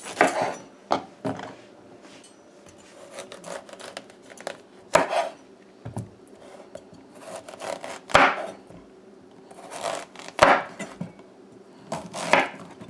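Chef's knife slicing through a raw green squash and knocking onto a wooden cutting board, in a series of separate cuts at irregular gaps of about one to a few seconds.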